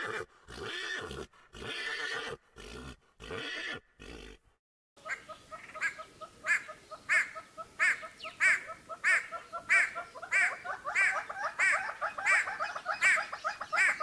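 Animal calls: a few short separate calls in the first five seconds, then a long run of quick repeated calls, about two a second, each sweeping sharply in pitch.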